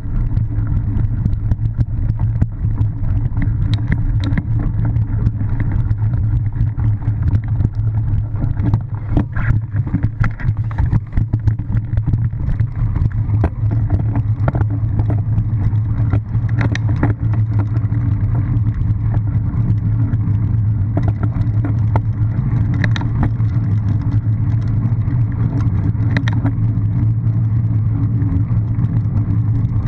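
Steady rumble of wind and tyre noise on a bike-mounted camera as a cyclocross bike rides over grass and then a gravel path, with many short rattles and clicks from bumps in the ground.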